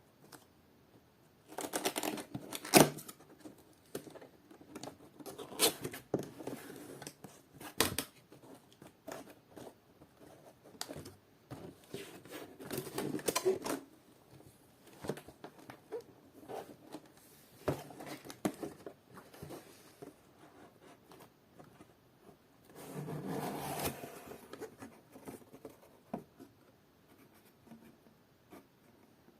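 Packaging being handled and unpacked by hand: bursts of rustling and scraping with scattered sharp clicks and taps, the loudest click about three seconds in.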